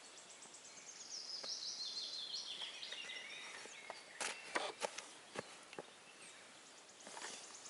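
A small bird singing a fast, high trill, with a handful of sharp cracks and snaps about halfway through.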